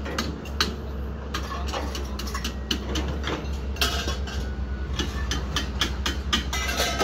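Hammer blows on steel formwork and pipe props, irregular sharp metallic clinks and knocks, over a steady low hum.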